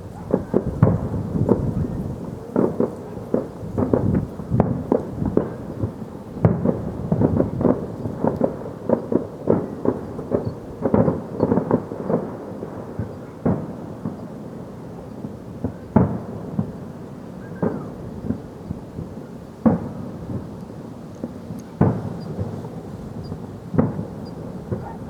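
Fireworks going off in a long irregular series of dull bangs and booms, sometimes several a second and sometimes a second or two apart, with rumbling echoes between them.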